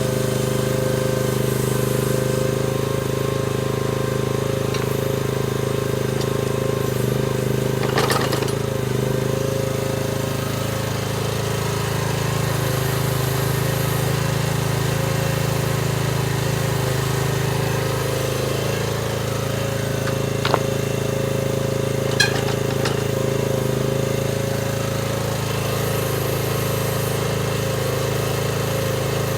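Chinese mini excavator's engine running steadily at working revs, with three short sharp clanks along the way.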